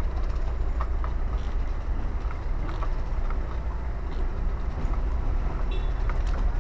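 Horse-drawn carriage on the move: a steady low rumble from the rolling carriage, with the horse's hooves clopping on the road now and then.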